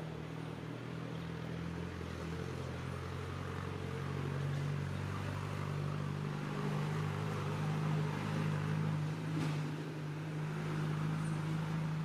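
An engine running steadily with a low hum that shifts slightly in pitch, cutting off at the very end.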